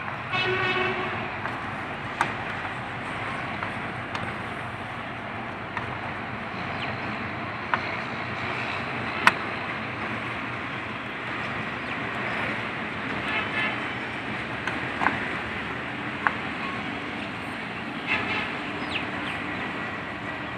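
Steady background noise with about half a dozen sharp clicks scattered through it, from small metal parts and screws being handled while a CPU cooler fan is screwed down onto a motherboard.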